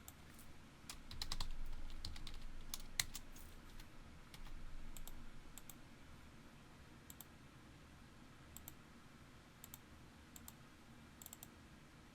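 Computer keyboard and mouse clicks: a quick run of keystrokes in the first five seconds, then scattered single clicks.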